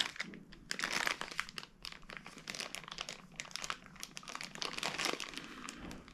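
Plastic packaging crinkling and rustling in irregular bursts as cables and connectors are handled and unwrapped.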